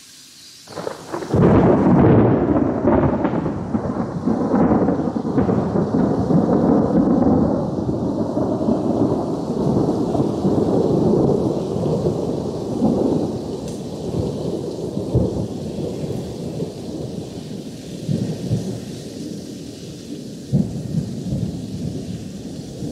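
A loud thunderclap about a second in, crackling at first, then a long rolling rumble that slowly fades.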